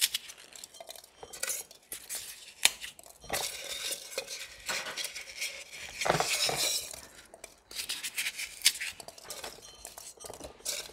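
Small clinks and scrapes against a terracotta flower pot, with handled paper, as a wad of paper is pressed down into the bottom of the pot. The clicks are irregular, with a longer stretch of scraping in the middle.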